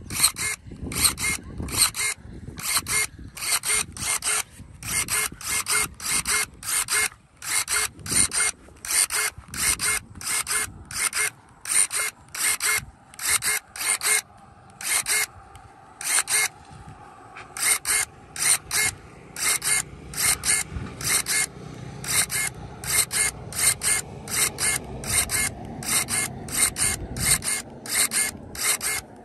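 Cordless electric pruning shears firing over and over, a short geared-motor whir about twice a second as the blade snaps shut and reopens while cutting green shrub stems. There is a short pause about halfway through.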